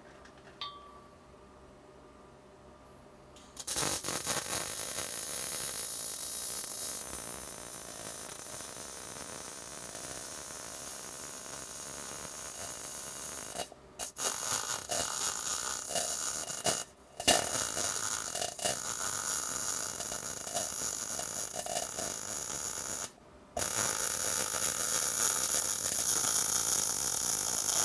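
MIG welder arc running solid (hard) wire on the root pass of a 5-inch pipe: a steady crackling hiss that starts about four seconds in and breaks off briefly three times as the arc is stopped and restruck.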